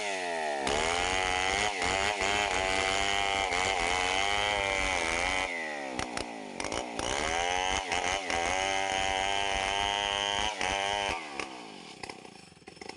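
Two-stroke chainsaw cutting through wood, its engine speed dipping and rising again and again as the chain bites. The pitch drops sharply once a little over halfway through, picks back up, and the engine falls away near the end.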